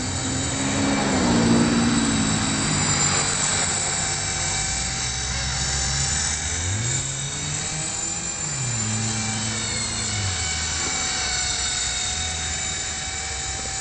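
E-flite Blade CP Pro 2 electric collective-pitch RC helicopter in flight: a steady high motor and gear whine with rotor noise. Its pitch rises and falls a few times as it is put through manoeuvres.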